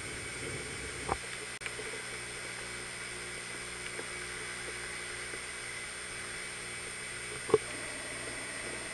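Hurricane wind as a steady rushing hiss with a whirring hum under it, broken by two sharp knocks, a light one about a second in and a louder one near the end.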